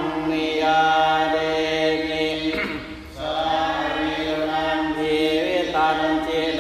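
Thai Buddhist evening chanting in Pali: voices chant in slow, drawn-out held tones, with a short break for breath about two and a half seconds in.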